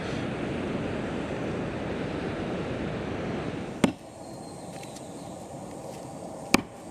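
Steady wash of ocean surf and wind. It breaks off about four seconds in with a sharp click, leaving a fainter hiss, and a second sharp click comes near the end.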